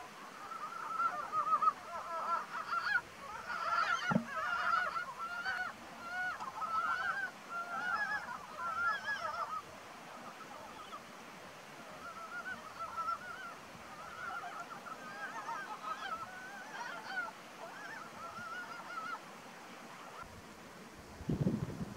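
Breeding chorus of Ezo brown frogs (Rana pirica): many short, quavering, duck-like notes overlapping, dense in the first half, thinning out after about ten seconds and stopping a few seconds before the end. A brief low rumble comes near the end.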